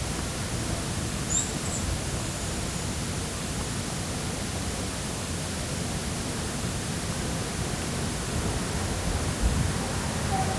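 Steady urban traffic ambience: an even wash of road noise with no single vehicle standing out. A brief high chirp comes about a second and a half in.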